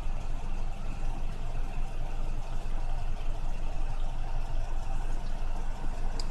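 A vehicle engine idling: a steady low rumble with no change in pitch or level.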